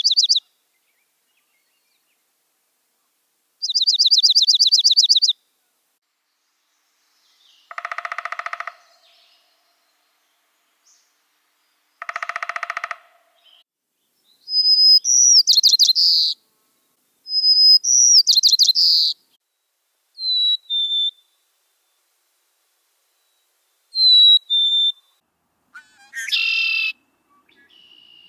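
A string of separate recorded songs and calls from several different common North American birds, each a second or two long with silent gaps between them. They go from fast high trills, to two harsher buzzy calls, to whistled song phrases, to short high two-note calls.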